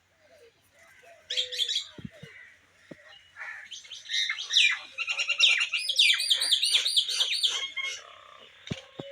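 Small birds chirping and twittering: a short burst of high chirps about a second in, then a fast run of rapid repeated high notes, several a second, that stops about a second before the end.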